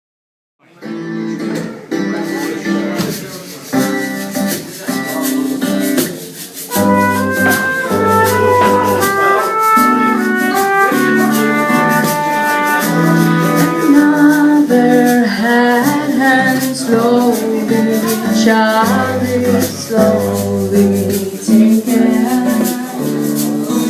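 Live band playing a song's instrumental introduction: strummed guitar chords over a steady shaker rhythm, with bass coming in about seven seconds in. The music starts abruptly just under a second in.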